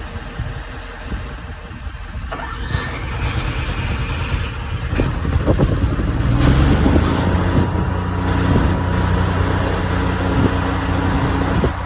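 An RV's onboard generator, its battery jumped from a truck, cranks and catches about five seconds in, then settles into a steady run over the truck's idling engine.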